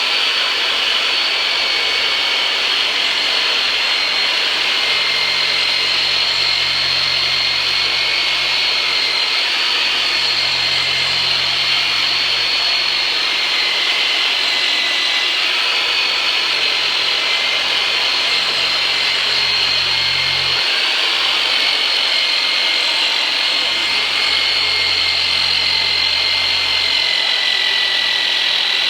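Turbinator chiropractic massage device running continuously, a really noisy, steady high-pitched power-tool whine that wavers slightly in pitch.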